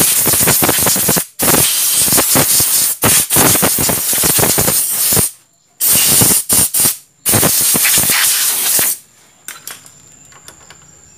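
Water spray hissing onto a motorcycle's front disc-brake caliper in several bursts of one to four seconds, rinsing off spilled brake fluid so it does not strip the caliper's paint.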